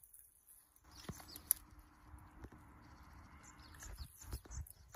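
Faint squelching and rustling of bare hands working through wet mud and rice-straw stubble, feeling into an eel burrow, with a sharp click about a second and a half in.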